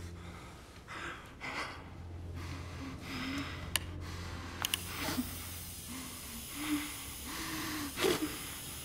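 A man breathing hard in irregular short breaths, with brief low moans. A few faint sharp clicks come near the middle.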